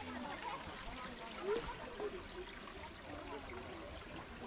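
Faint voices of people talking over a steady, noisy hiss.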